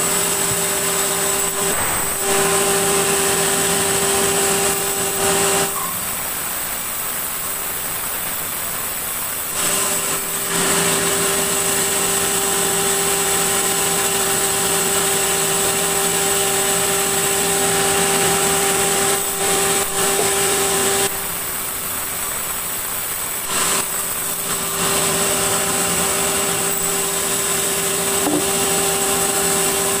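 Vertical band sawmill running through a large meranti log: a steady, loud, high-pitched whine with fixed ringing tones as the blade cuts. The cutting sound drops to a quieter running level twice, about six seconds in and about twenty-one seconds in, and picks up again a few seconds later each time.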